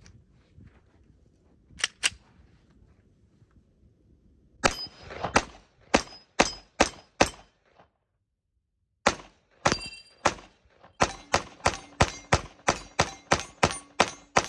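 FN FNX-45 Tactical .45 ACP pistol firing about twenty rounds, after two sharp clicks about two seconds in: first a string of about six shots, a short pause, then a faster, steady run of a dozen or more. A faint ring carries after the later shots, like rounds striking an AR-500 steel target. It runs through cheap bulk ammunition from a 20-round ProMag magazine with no stoppages.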